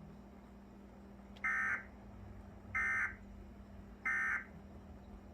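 Emergency Alert System end-of-message data bursts: three short, identical bursts of warbling digital tones about 1.3 s apart. This is the SAME code that marks the end of an EAS alert.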